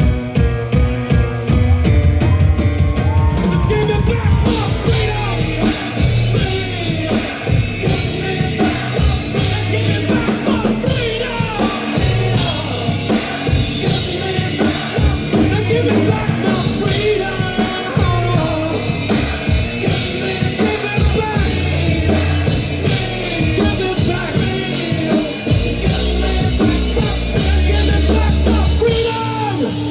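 Rock band playing loudly with a driving drum kit and sustained bass notes, in a full-band passage.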